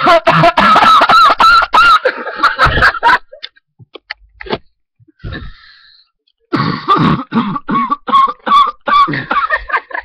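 A person coughing hard and clearing the throat in two fits of repeated harsh coughs, the first at the start and the second from about six and a half seconds in, with a short lull between: a bad, hacking cough.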